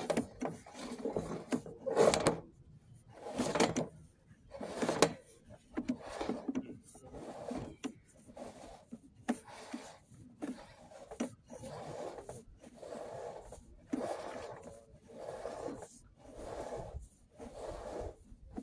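Drain inspection camera push rod being fed into a stormwater pipe by hand: repeated rubbing, scraping strokes, about one a second, uneven in loudness.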